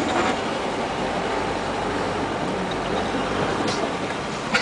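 A car moving at a crawl, heard from inside the cabin: a steady low run of engine and tyre noise.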